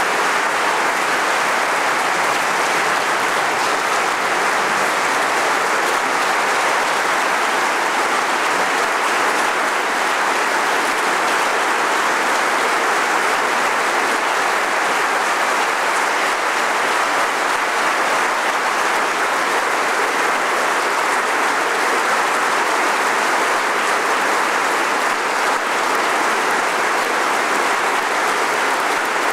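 A large audience applauding steadily, many hands clapping at once in a dense, even wash that holds at one level throughout.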